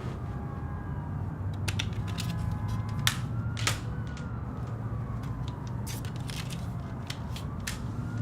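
A siren wailing slowly up and down, about one rise and fall every four and a half seconds, over a steady low rumble. Scattered sharp clicks and knocks sound on top, several of them between about two and four seconds in.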